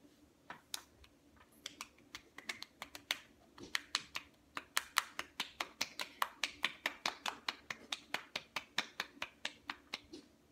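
Open hands slapping bare cheeks over and over: sharp smacks, a few scattered ones at first, then a quick steady run of about five a second.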